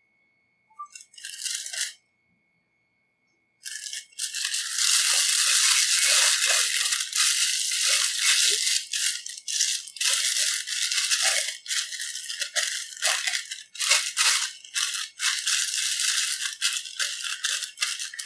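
Thin plastic piping bag crinkling and rustling as it is handled: a short rustle about a second in, then continuous, uneven crinkling from a few seconds in onward.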